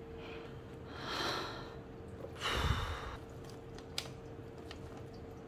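A person sighing: two breathy exhalations, the second heavier with a puff of breath on the microphone, followed by a single light click.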